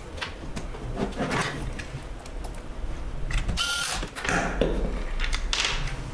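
Hands working on the small plastic and metal parts of a mini PC: a string of light clicks and taps and several short scrapes, the strongest about three and a half seconds in, over a steady low hum.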